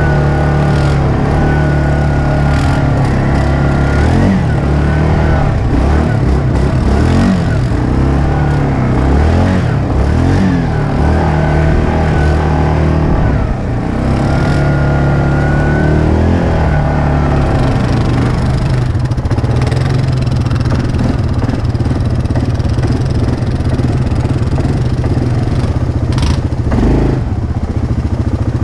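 ATV engine running at low trail speed, its pitch rising and falling again and again as the throttle is worked over rough ground, with a thin high whine on and off. A sharp knock near the end.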